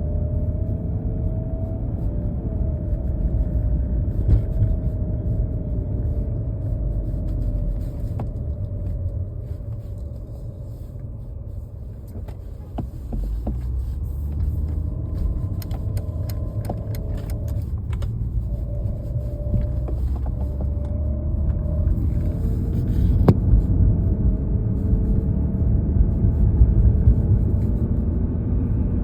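Cabin noise inside a Mercedes-Benz CLS (W219): a steady low rumble with a wavering whine-like tone that comes and goes, and scattered sharp clicks, mostly in the middle. This is the unexplained weird sound the owner cannot identify.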